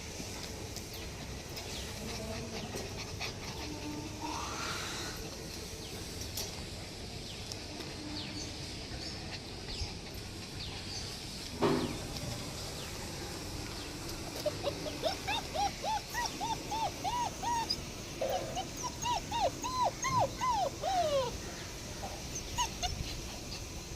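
German Shepherd puppies whining: a quick run of short, high rising-and-falling whimpers, two to three a second, starting a little past the middle and lasting about seven seconds. A single sharp knock comes shortly before.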